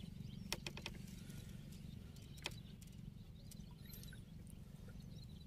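Quiet outdoor ambience: a steady low rumble, a quick run of four sharp clicks about half a second in and one more about two and a half seconds in, with faint bird chirps.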